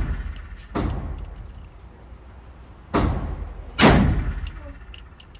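Three single gunshots, each trailing off in an echo: one about a second in, then two close together around three and four seconds in, the last one loudest.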